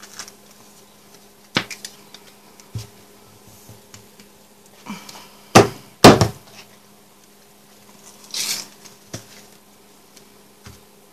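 Stuck lid of a Mod Podge jar being wrenched open by hand: scattered clicks and knocks, two loud sharp cracks a half second apart around the middle, and a brief scraping rush later on. The lid is glued fast at the rim.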